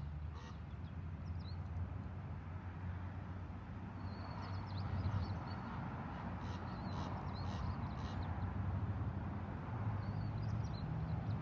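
A steady low hum with bird calls over it: short high chirps about four seconds in and again near the end, and a few quick calls around seven seconds in.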